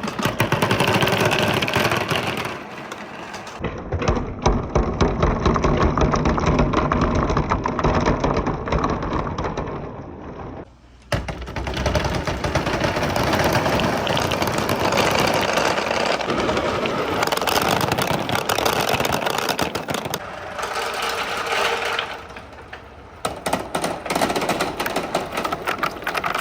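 Many marbles clattering and rolling along wooden marble-run tracks: a dense, fast rattle of clicks that shifts abruptly several times.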